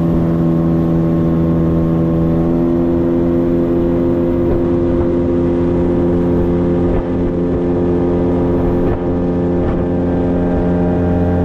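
Yamaha 9.9–15 outboard motor running steadily under way, pushing an aluminium boat at an even speed.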